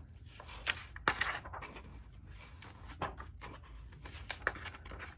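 Paper pages of a large softcover workbook being turned and brushed by hand: several short papery swishes, the clearest about a second in, about three seconds in and near the end.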